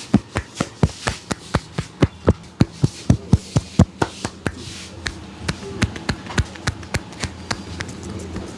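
A massage by hand: rhythmic tapping and slapping strokes on the body, about three or four a second, lighter after about five seconds.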